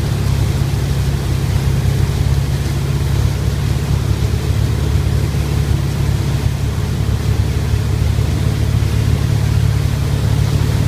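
Ski boat's engine running at a steady throttle while towing a water skier, a low steady drone, with the rush and hiss of water and spray from the wake over it.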